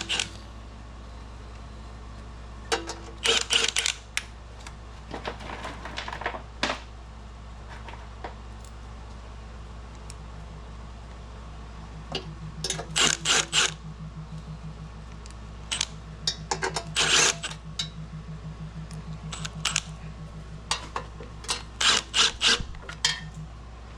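Short bursts of metallic clicking and rattling, several times over, from hand tools and bolts as the oil pan bolts are started and run in. A steady low hum runs underneath.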